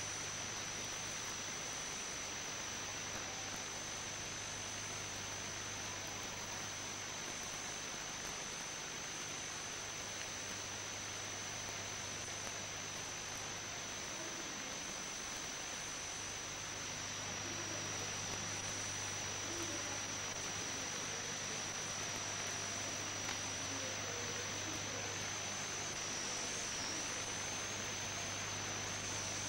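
Steady recording hiss with a constant thin high-pitched whine and a low hum underneath, the background noise of an old analogue video recording.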